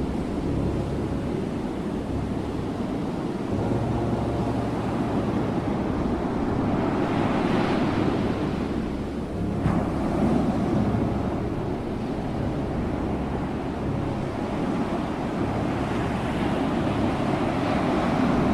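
Ocean surf: a steady rush of waves, with the wash swelling and breaking twice, about halfway through and near the end. A brief sharp click sounds just before the middle.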